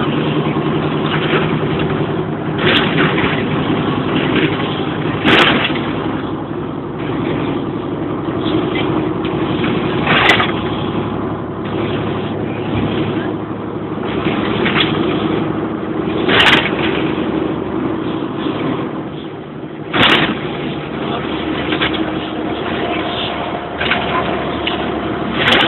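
Steady drone of a Bova Futura coach's diesel engine and road noise heard from inside the passenger cabin while it drives along. Five short sharp knocks break through it every four to six seconds.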